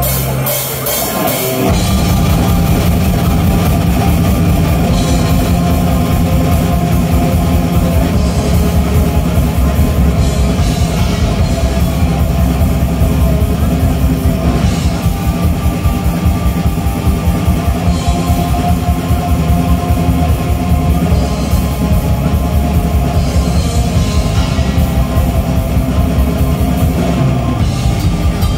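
Black metal band playing live: distorted electric guitars and fast, dense drumming on a drum kit. A low droning intro gives way to the full band about two seconds in.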